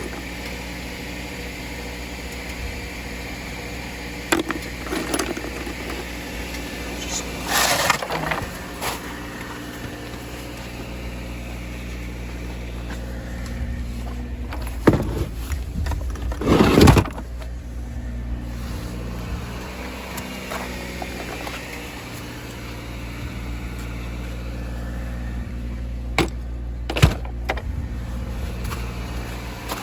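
Motor vehicle driving: a steady low engine and road drone, with several short knocks and rattles along the way.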